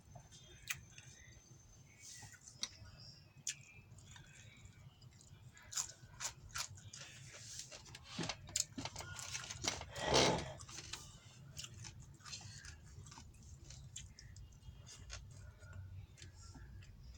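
A person chewing and biting food in a mukbang, mouth sounds close to the microphone, with scattered small clicks and a louder noisy stretch about ten seconds in. A low steady hum runs underneath.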